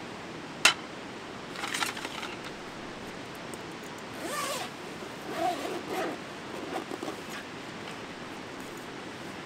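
A padded cookware carry bag's zipper being pulled open in four short strokes, after a single sharp clink near the start as a glass bottle is set down on the aluminium camping table. A steady rush of river water runs underneath.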